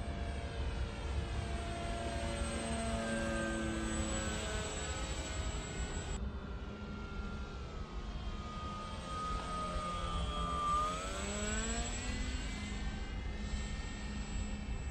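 RC canard model aeroplane's motor and propeller droning in flight. The pitch slides down and back up several times as the plane passes, with a steady low rumble underneath.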